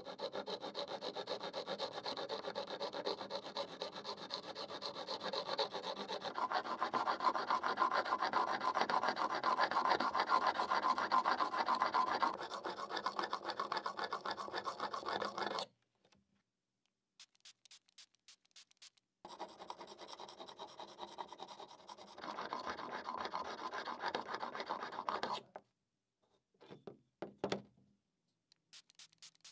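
A steel chisel, held in a wooden honing guide, is rubbed back and forth on a sharpening stone: a continuous, rasping scrape. It stops a little past halfway and, after a few short strokes, runs again for about six seconds. A few light clicks come near the end.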